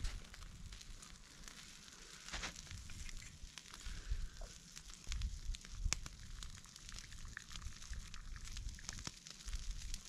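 Hot wood campfire crackling, with sharp pops scattered through it; the loudest pop comes about six seconds in.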